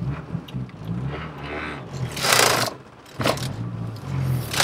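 Big-turbo Mazdaspeed6's turbocharged four-cylinder engine heard from inside the cabin, pulling hard with its pitch changing. About two seconds in comes a loud rushing hiss, the loudest moment. There is a brief drop in level, then the engine pulls again, with another rush at the very end.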